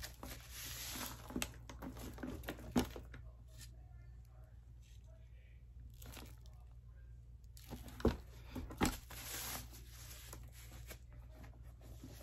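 Plastic protective wrapping on a handbag strap crinkling as it is handled, quieter in the middle stretch. A few sharp clicks of the bag's metal hardware, two of them close together about eight seconds in.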